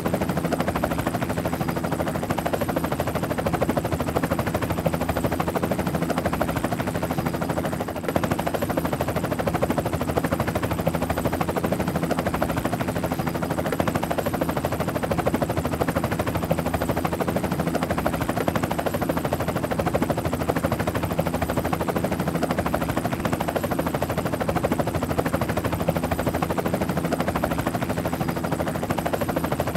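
Helicopter rotor and engine noise: a steady, very fast rotor chop over a constant low engine hum, with a brief dip about eight seconds in.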